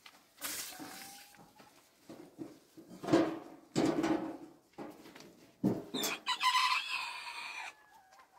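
A rooster crows once, a long call of about two seconds starting near six seconds in. Before it come a few knocks and thumps, the loudest about three seconds in.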